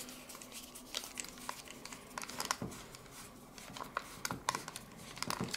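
Faint, irregular small clicks and taps of a plastic TrackMaster toy engine being handled, with a screwdriver working on its plastic shell.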